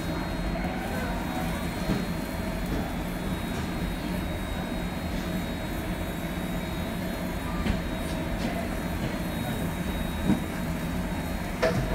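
Steady mechanical hum of a commercial rotisserie grill turning its wire baskets of chicken, with a few light metallic clicks.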